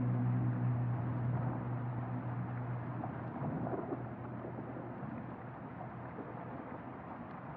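Ambient electronic soundscape: a held synthesizer chord fades out in the first couple of seconds, leaving a steady rushing noise texture that slowly grows quieter.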